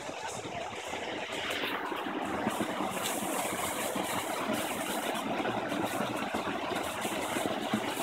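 Creek water flowing and splashing over rocks, a steady rushing noise that grows louder about a second and a half in.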